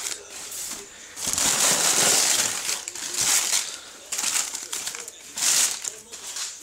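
Packaging rustling and crinkling in several bursts while being handled, the longest beginning about a second in and lasting around two seconds.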